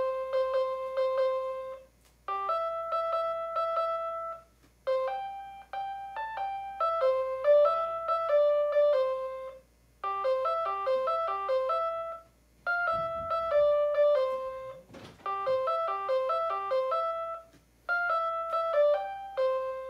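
Fisher-Price Talking Dinosorter toy playing a children's tune from its small speaker in simple electronic notes, one note at a time, in short phrases with brief pauses between them.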